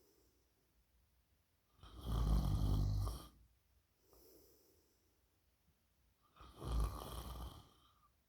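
A sleeping person snoring: two loud snores about four and a half seconds apart, with softer breaths between them.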